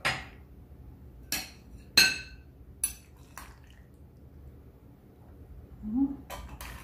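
Metal spatula clinking and scraping against a glass baking dish and a ceramic plate while a portion of baked macaroni is served, a handful of sharp clinks with the loudest, ringing one about two seconds in.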